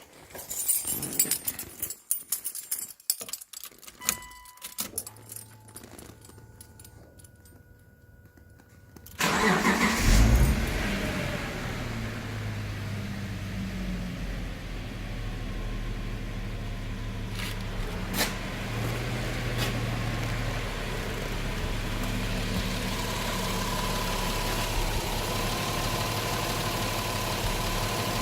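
Irregular clicks and knocks, then a few held electronic tones, then a car engine starts about nine seconds in and settles into a steady idle.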